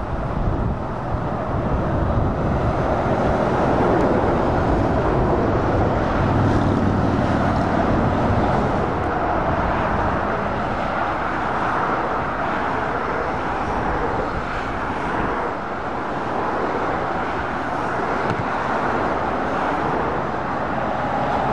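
Road traffic passing on a dual carriageway: cars, vans and heavy Scania lorries, a continuous roar of tyres and engines. A lorry's low engine drone is strongest in the first half, then eases into the lighter hiss of passing cars.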